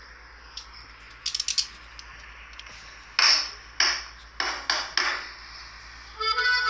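A quick run of clicks, then five sharp knocks or hits over about two seconds, each dying away quickly. Near the end, accordion music starts.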